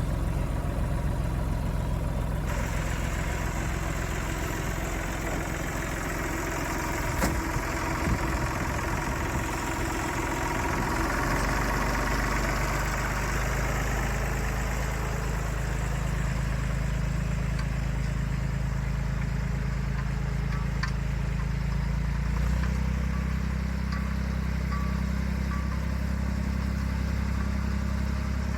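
Tractor or digger engine running steadily at idle, its note shifting a third of the way in and again near the end, with two sharp knocks about seven and eight seconds in.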